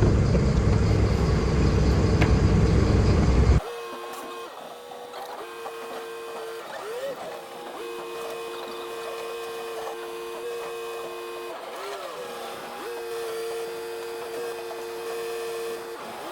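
Refuse collection lorry running loudly, cut off suddenly about three and a half seconds in. Then a quieter steady two-note hum that breaks off briefly every few seconds.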